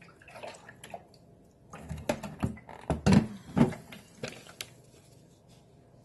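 Plastic knocks and clunks as the filled water tank of a Vicks Germ Free cool mist humidifier is set down onto its base, a run of them in the middle with two firmer thumps about three seconds in.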